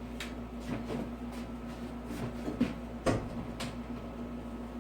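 A few light knocks and clicks of handling work around a door frame, the sharpest about three seconds in, over a steady low hum.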